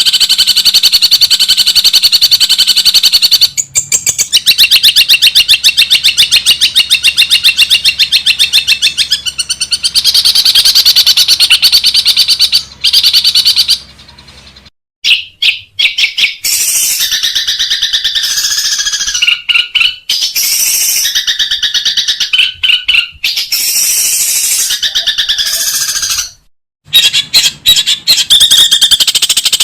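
Long-tailed shrike (cendet) singing: long, very fast rattling trills of repeated high notes, with a short break near the middle, then choppier chirping phrases before the rapid trill returns near the end.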